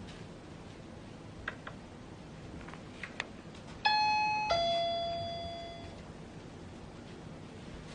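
Two-note doorbell chime: a higher note, then a lower one about half a second later that rings out and fades over about a second and a half. A few faint clicks come before it.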